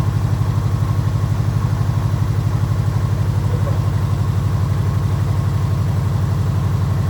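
Subaru Legacy's boxer engine idling steadily with an even, loud pulsing beat, freshly brought back to life after repairs. The owner says the car still has an exhaust issue.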